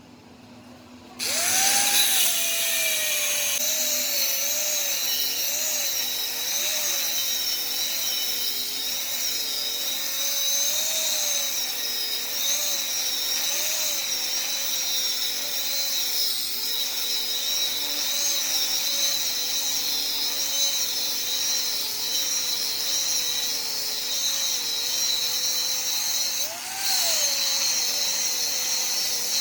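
A high-speed power tool starts up about a second in and runs steadily, its whine wavering up and down in pitch as the load on it changes; near the end it dips briefly and climbs back.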